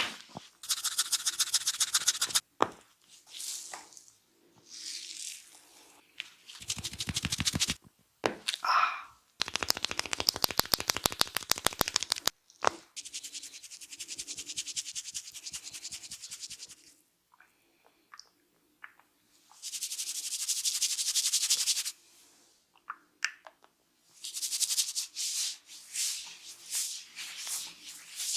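A barber's head massage with the hands, in bursts of a few seconds: fast trains of rapid tapping strokes alternate with stretches of hands rubbing through hair.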